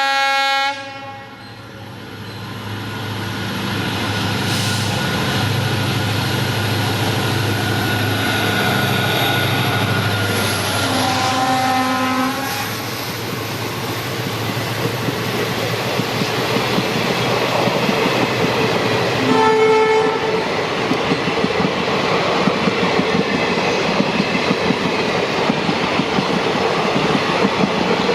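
EMD WDP4D diesel locomotive pulling away and notching up: a horn blast cut off in the first second, then the engine's drone building over the next few seconds. Two short horn honks come about eleven and nineteen seconds in, and the clatter of wheels over rail joints grows through the second half.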